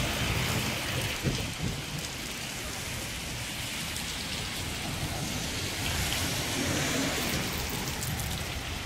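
Steady hiss of light monsoon rain falling on a wet street.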